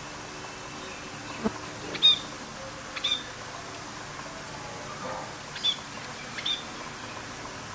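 Lovebird giving short, sharp chirps, about four of them spaced a second or more apart, over a steady background hiss.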